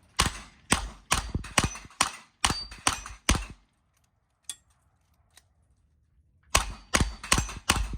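Smith & Wesson 929 9mm revolver fired rapidly: eight shots about two a second, a pause of roughly three seconds while it is reloaded, then five more quick shots near the end.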